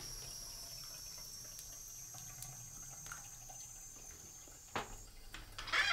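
Faint small-room sounds at a bathroom sink: light drips and small clicks over a steady high-pitched whine, with a sharper click near the end.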